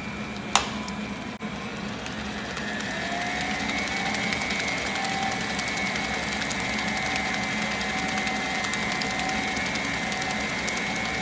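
KitchenAid stand mixer running, beating cream cheese and egg filling. A sharp click comes about half a second in; then the motor's whine rises slightly in pitch and holds steady at a higher speed.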